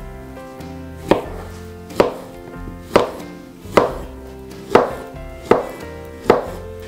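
Chef's knife slicing a banana into rounds on a cutting board, the blade knocking the board seven times at about one cut a second.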